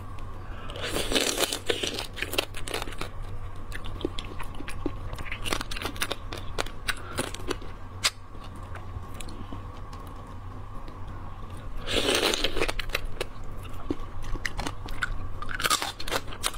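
Close-miked crunching and chewing of a small crab in chili sauce, shell and all. There are loud bursts of crunching about a second in, around twelve seconds and near the end, with quieter crackling chews between them.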